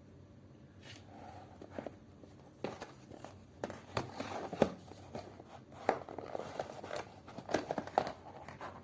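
Plastic ready-meal packaging being handled and opened: irregular crinkling with sharp clicks and snaps, busiest in the second half.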